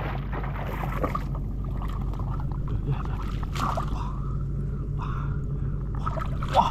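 Water sloshing and splashing in short bursts as hands work through shallow water after catfish, over a steady low hum.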